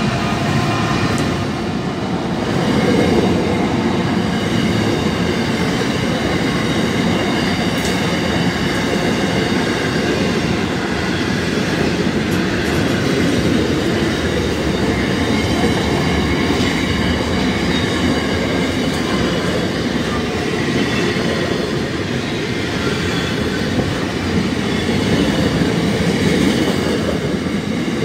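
Intermodal container freight train rolling past at close range: a steady rumble of wheels on rail with thin, high squealing tones from the wheels.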